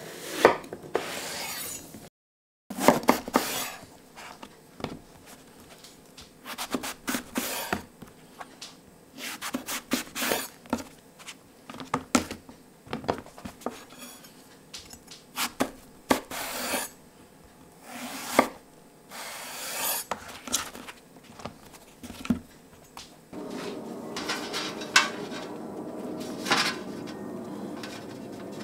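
Chef's knife slicing an aubergine on a wooden chopping board: a string of irregular cuts, each a short rasp through the flesh ending in a knock on the wood. In the last few seconds a steady hiss sets in, with a couple of light taps as the wedges are laid on a baking tray.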